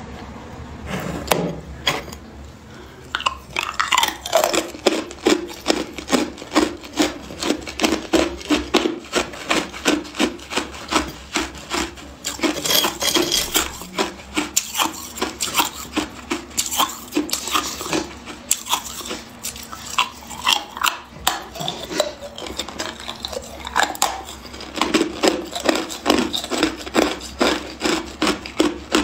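Close-miked crunching of hard ice being bitten and chewed: a run of sharp crunches, about two a second.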